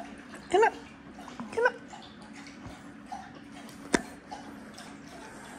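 Dog whining: two short, wavering whines about half a second and a second and a half in, then a single sharp click about four seconds in.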